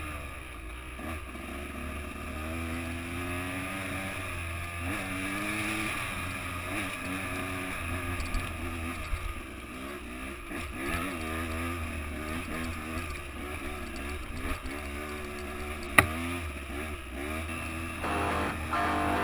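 Dirt bike engine revving up and down with the throttle, its pitch rising and falling over and over, with one sharp knock a few seconds before the end. Guitar music comes in right at the end.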